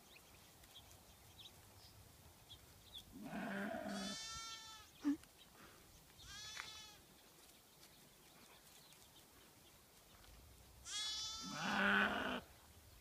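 A ewe and her lamb calling back and forth in three bouts, about three seconds in, about six seconds in and near the end: the ewe's baa is low and hoarse, as if she had laryngitis, and the lamb answers with a higher, clearer bleat.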